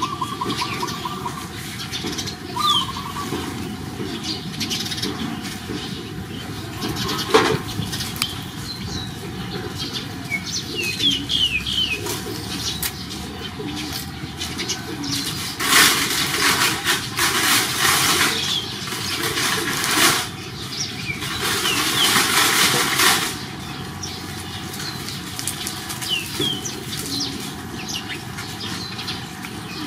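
Small birds chirping now and then. Around the middle come two stretches of louder hissing noise, each a few seconds long.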